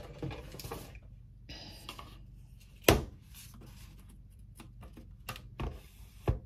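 Makeup palettes and brushes being handled: light rustling and taps, with a sharp click about three seconds in and two more clicks near the end.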